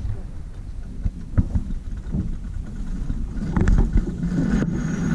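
Steady low rumble of a sailboat underway on a calm sea, with a few light knocks.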